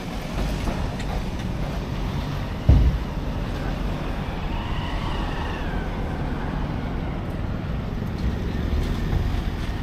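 Steady low rumble of a vehicle engine, with a single sharp thump nearly three seconds in.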